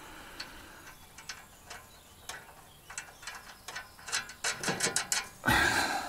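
Ratchet spanner clicking as a nut on the flail mower is worked: scattered single clicks at first, then a quick, even run of clicks about four seconds in. Near the end comes a short, louder rustling burst.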